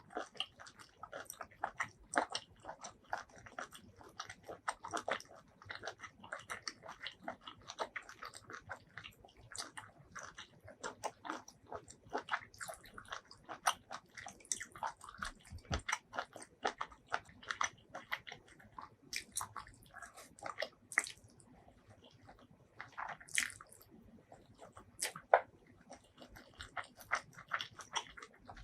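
Close-miked eating sounds: a person chewing and biting food, many short irregular clicks and smacks, a few louder bites standing out.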